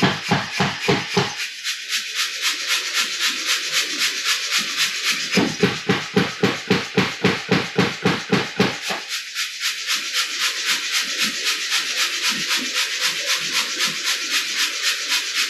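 Mechanical power hammer running at about four blows a second. The blows are heavy and deep for the first second or so and again from about five to nine seconds in, and lighter and higher in between.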